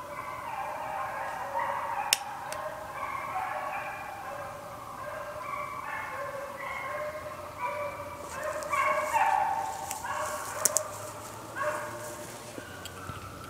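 A pack of deer-hunting hounds baying together, many voices overlapping in held cries that shift in pitch. There is a sharp click about two seconds in and crackling later on.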